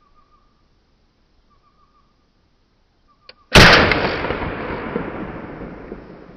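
A single rifle shot from an SKS semi-automatic rifle about three and a half seconds in, its report echoing and fading away slowly over the following seconds. A faint click comes just before the shot.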